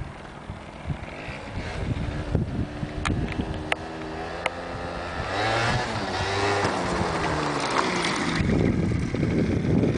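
MBK Booster scooter's two-stroke engine revving as the scooter comes back toward the microphone and passes close by, its pitch rising and falling and getting louder toward the end, with wind rumbling on the microphone.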